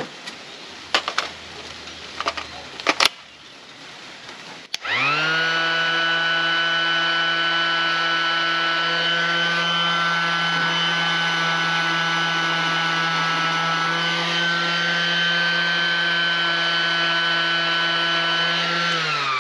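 A few handling clicks, then about five seconds in a cordless random orbital sander starts up and runs at a steady pitched hum while sanding a worn plastic traction stud on a Maxtrax recovery board flat. It begins to wind down as it is switched off at the very end.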